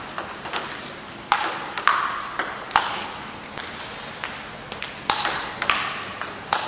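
Celluloid-type table tennis ball clicking on the table and the paddles in a blocking rally, about two to three sharp hits a second, each with a short ring. The player is returning the ball with a long-pimpled rubber, blocking with the blade face pressed down.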